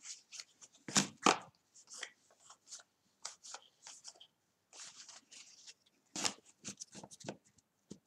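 A stack of baseball cards being thumbed through by hand, card after card flicking and sliding against the next in short, irregular papery swishes, the loudest pair about a second in.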